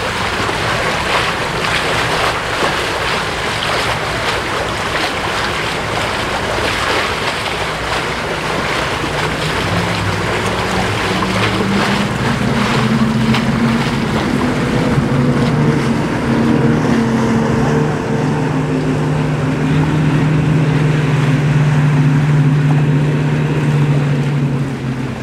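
Wind and water rush, then the outboard motors of a center console boat running at high speed, their drone coming in about ten seconds in and growing louder before dropping off near the end.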